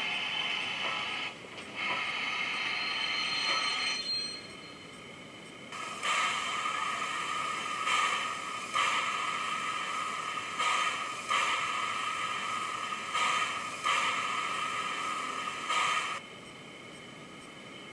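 Sound-decoder steam effects from a model GWR 37xx 'City' class 4-4-0 locomotive, played through its small loudspeaker. Running sounds and a brief high squeal come as it draws to a stop about four seconds in. Then, while it stands, a loud steady steam hiss with a clear tone cuts in and out several times for about ten seconds.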